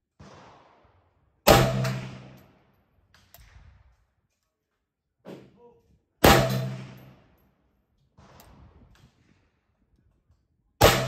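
Arsenal SAM7R AK-pattern rifle in 7.62x39mm firing three single shots about four and a half seconds apart, each a sharp bang with a fading echo. Fainter bangs fall between them.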